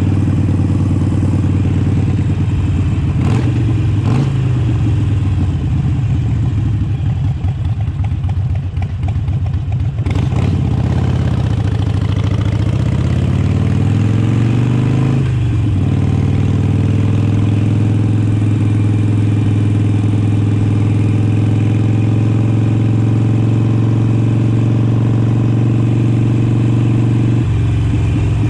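Harley-Davidson Sportster Iron 883's air-cooled V-twin running while the bike is ridden. Its pitch rises and falls in the first half, climbs and then drops sharply at an upshift about halfway through, holds a steady cruise, and eases off near the end.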